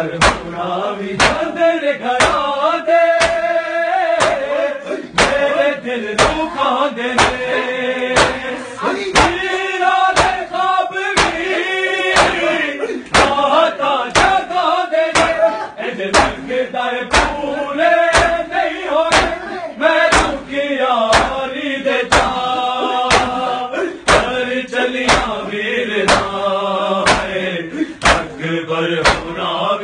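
A crowd of men chanting a mourning lament (noha) in unison, over a loud beat of open hands striking bare chests together, a bit more than one blow a second, in time with the chant.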